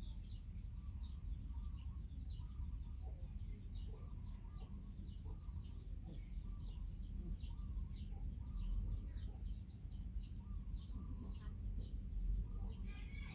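Small birds chirping in the background: short, high chirps repeated a few times a second, over a steady low rumble.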